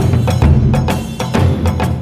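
Music with sharp percussive hits over a steady low bass.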